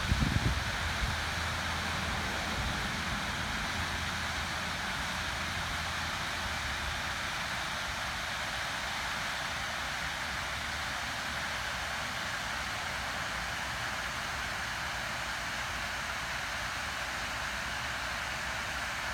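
Waterfall rushing: a steady, even hiss of falling water. Brief low rumbling in the first second.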